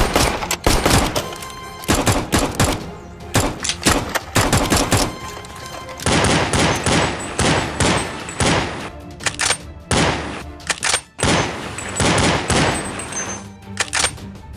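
Rapid gunfire sound effects in repeated bursts over background music, with short lulls about five and eleven seconds in.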